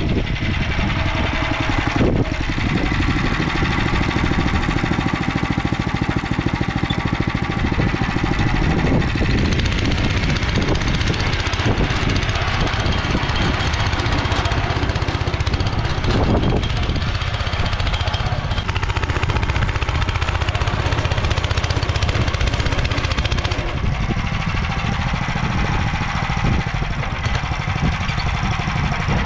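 Motor Sich walk-behind tractor's engine running steadily under work, its narrow rotary tiller churning through soil.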